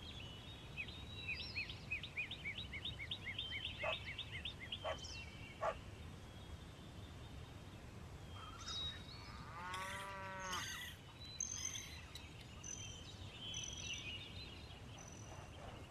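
Farmyard animal and bird sounds: a fast run of repeated high chirps for a few seconds, then a single short call rich in overtones about ten seconds in, with scattered high bird whistles after it.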